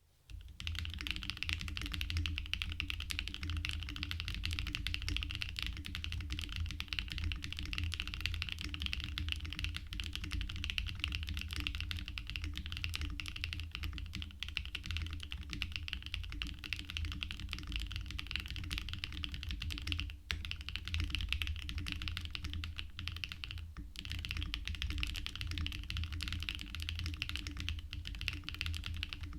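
Continuous fast typing on a Mode Sonnet mechanical keyboard with lightly lubed Gateron Raw switches in a POM plate, stack-mounted with plate foam: a dense stream of key clacks with brief pauses about 20 and 24 seconds in.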